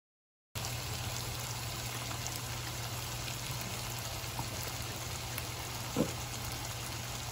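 Chicken pieces sizzling in oil and their own juices in a frying pan: a steady hiss with a low hum underneath, and a single spatter pop about six seconds in.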